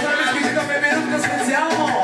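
Music playing with a steady beat and a voice singing over it.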